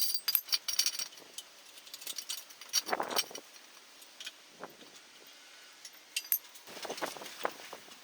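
Metal clinking and rattling, like tools and small parts being handled: a quick cluster of clinks in the first second, another burst about three seconds in, and more clinks near the end.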